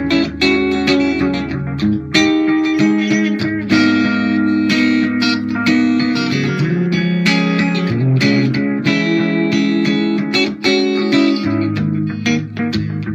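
Electric guitar played with a clean tone, picking a steady stream of chords and single notes.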